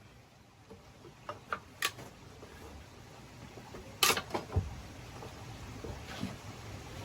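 A few short sharp clicks and knocks, then one loud sharp knock about four seconds in followed by a duller thud, over a faint background hiss.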